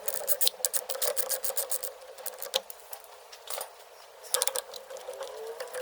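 Ratchet wrench clicking in quick runs as the engine mount's 17 mm bolts are spun loose: a run in the first two seconds and another about four and a half seconds in. A faint steady hum runs underneath.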